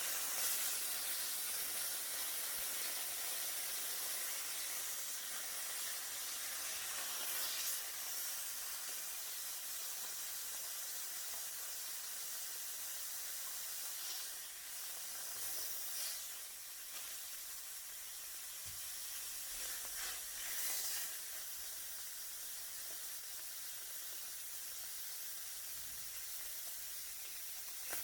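Kobe beef steak sizzling in a hot pan: a steady, high frying hiss, with a few brief louder flares along the way.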